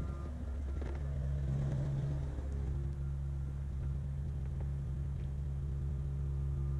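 Diesel engine of a Kubota KX057-5 mini excavator running steadily, its note lifting and getting a little louder about a second in.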